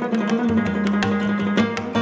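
Afghan rubab playing fast, evenly plucked notes over low sustained tones, in live instrumental music.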